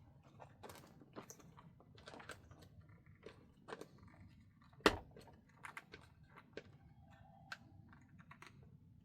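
Hard-case LiPo battery being fitted and secured in an RC truck's plastic battery tray: scattered light clicks and knocks, with one sharper click about five seconds in.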